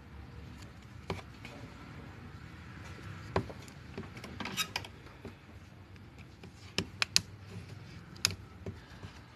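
Scattered sharp clicks and taps of small hand tools and the plastic and metal parts of a Huawei Ascend Y530 phone being handled as it is taken apart, with a quick run of louder clicks about seven seconds in.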